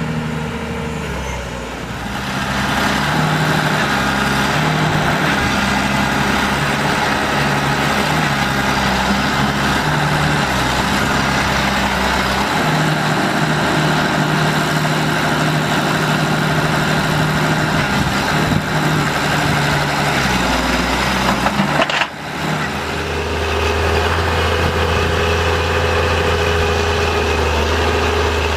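Heavy diesel engine running steadily. About two-thirds of the way through there is a brief break, then a steady, deeper engine hum carries on.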